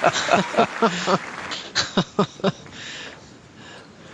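Spectators reacting aloud, a quick run of short vocal bursts like laughter and exclamations for about two and a half seconds, then fading to low crowd noise.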